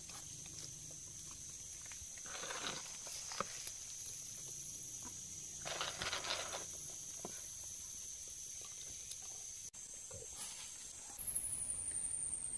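Steady high-pitched insect chorus, with two brief rustles of sticks being handled; near the end the drone gives way to a single high whine that slides downward.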